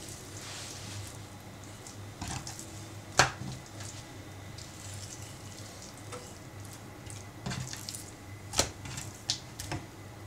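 Kitchen knife trimming raw chicken thigh on a wooden cutting board: soft, wet cutting and handling of the meat, with a few sharp knocks of the blade on the board, the loudest about three seconds in and a cluster more near the end.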